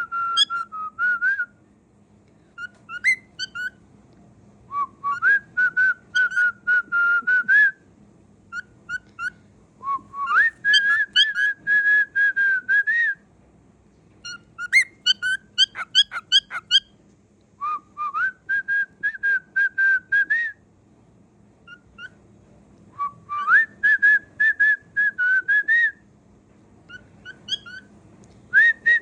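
Cockatiel whistling a song in repeated phrases of warbling notes, each a few seconds long, with short chirps in the pauses between phrases.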